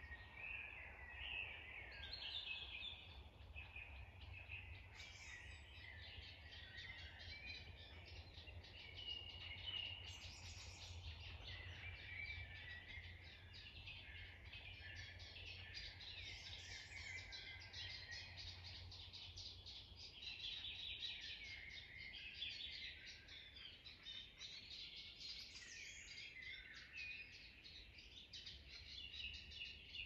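Several wild songbirds singing and chirping continuously in an overlapping chorus, faint, over a low steady rumble.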